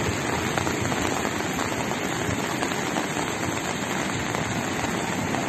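Steady, even noise of heavy rain falling and muddy flash-flood water rushing down a street.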